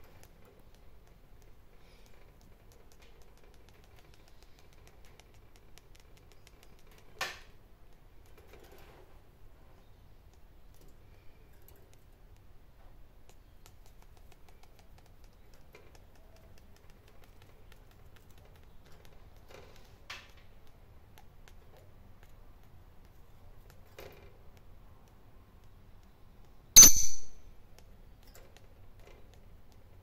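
Sparse faint clicks and taps from a rosy-faced lovebird moving about its wire cage, with one loud, sharp sound lasting about half a second near the end.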